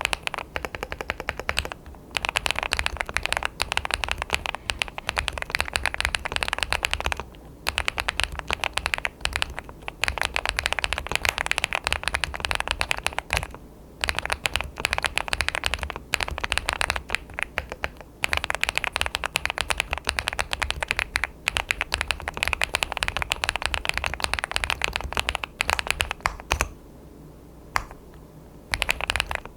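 Fast typing on an ABKO AR88 aluminium-case custom mechanical keyboard: dense runs of keystroke clacks, broken by brief pauses a few times and a longer pause near the end.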